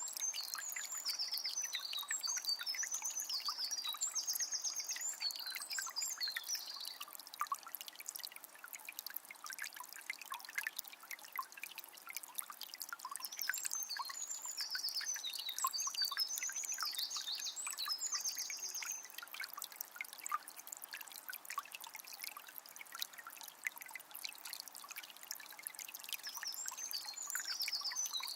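Water of a small spring trickling and splashing steadily, with a small bird singing a quick, high, trilling phrase three times: near the start, in the middle, and again at the end.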